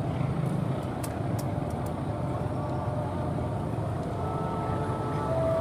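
Freight train running past with a steady low rumble. A faint steady tone comes in near the end.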